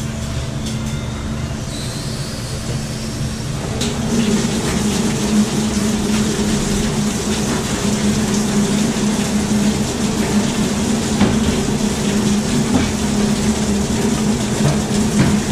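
RIDGID K9-306 flexshaft drain machine running, its cable spinning inside a grease-clogged drain line. It makes a steady mechanical hum that gets louder about four seconds in and then holds.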